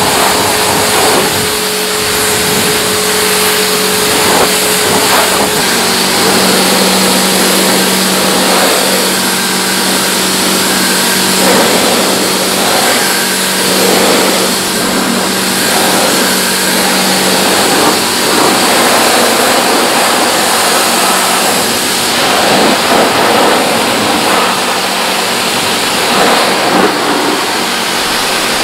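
Pressure washer running, its water jet hissing and spattering on a car's wheel and then on mud-caked bodywork, over a steady hum.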